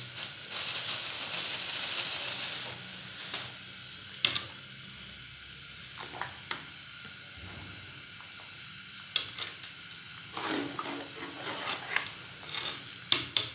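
Metal spoon stirring rice into a large aluminium pot of boiling meat stock, with scattered clinks and scrapes against the pot. A steady hiss from the boiling pot fills the first few seconds, then drops away.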